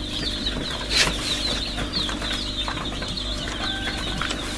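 Many young chicks peeping: short falling chirps, rapidly repeated and overlapping, over a steady low hum of running machinery. A single sharp knock about a second in.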